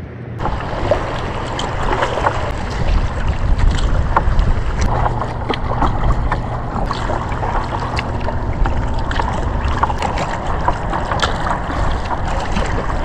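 Water splashing and dripping around a kayak as it is paddled: a steady wash with many small drips and plinks throughout.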